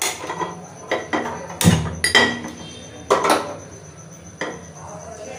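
Half a dozen or so sharp metallic knocks and clatters of an aluminium pressure cooker on a gas stove's burner, some ringing briefly, the loudest a little under two seconds in, as the stove is being lit.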